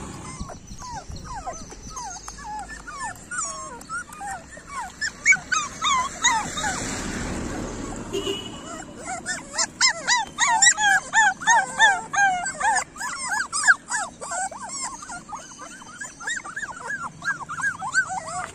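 Several street dog puppies whimpering and crying, short high cries overlapping one another. The cries are scattered at first, pause briefly past the middle, then come thick and continuous.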